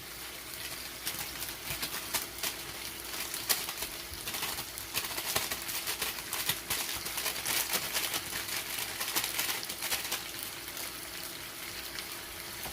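Chicken pieces sizzling and crackling in a hot saucepan, an irregular spatter of fine pops that thickens in the middle stretch.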